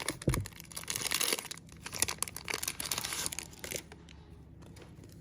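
Trading card pack wrapper being torn open and crinkled, a dense crackling rustle that dies down about four seconds in to quieter handling.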